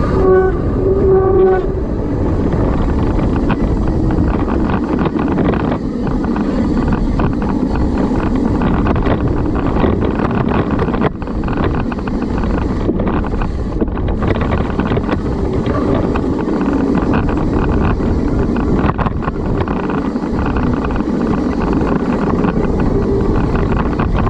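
Steady, loud wind rush on the microphone, mixed with the rumble of mountain bike tyres and bike rattle on a fast trail descent. A brief pitched note sounds in the first second or so.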